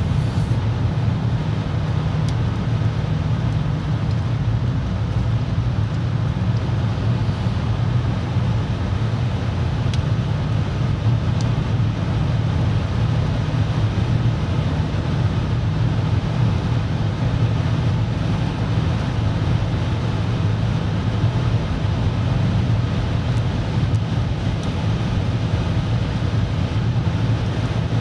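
Steady low rumble of road and engine noise heard inside a car cabin while cruising at motorway speed.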